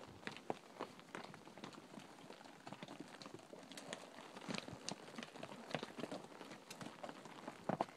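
Horses' hooves clip-clopping faintly on a rocky trail as a string of horses walks: scattered, irregular clicks of hooves striking loose stone.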